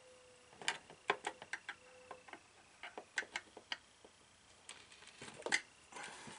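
Quick, irregular clicks and taps in small clusters: an awl point pricking the sheetrock through the mounting holes of a plastic sprinkler controller held against the wall, marking where to drill.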